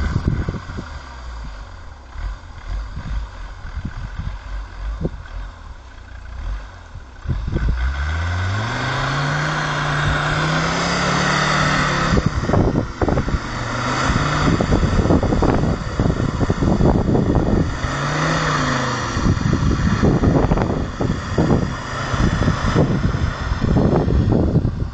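Land Rover engine idling with scattered knocks, then about eight seconds in the revs rise and it pulls hard under load through deep snow. The engine note dips and climbs again twice, with many knocks and rattles throughout.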